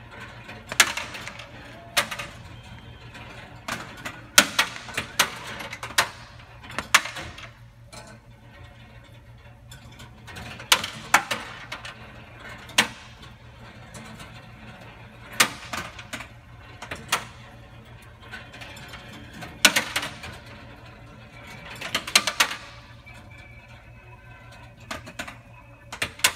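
Gumballs rolling along the metal wire spiral tracks and lifts of a 7-ft quarter-operated gumball machine. They make irregular sharp clacks and rattles, some in quick runs, over a steady low hum from the machine.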